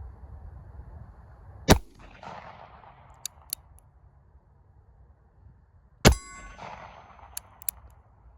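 NAA Sidewinder .22 WMR mini revolver firing two shots about four and a half seconds apart, each followed by a decaying tail. A pair of light clicks comes after each shot.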